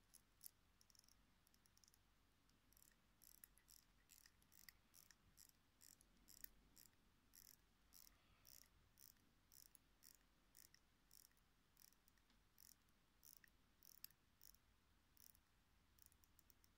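Faint ratcheting clicks of a Vostok Amphibia's crown being turned to hand-wind the mainspring of its 2416B automatic movement, at about three clicks a second.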